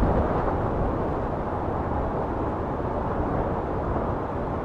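Steady wind noise buffeting the microphone: a dense, even rumble with no distinct tones.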